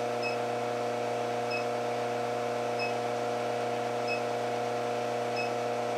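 Induction heater running with a steady hum of several held tones, bringing small steel wire in its copper coil up to welding heat. A faint short high chirp repeats about every second and a quarter.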